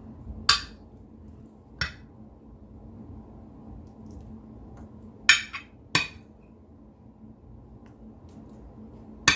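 Kitchenware handled on a worktop: five short, sharp clinks and knocks, the loudest a pair about five and six seconds in, over a faint steady hum.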